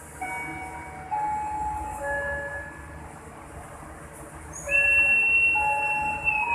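Passenger train standing at a station platform with a steady low rumble under it; shorter, quieter steady tones at changing pitches come first, then about five seconds in a horn sounds one long steady note, the loudest thing here.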